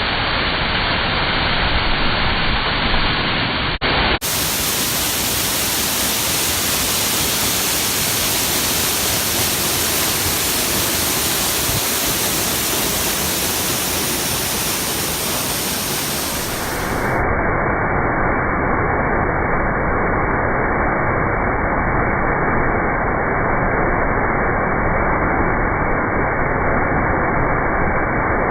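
Steady rush of a large waterfall, falling water pouring down close by. There is a brief break about four seconds in, and from about seventeen seconds on it sounds duller.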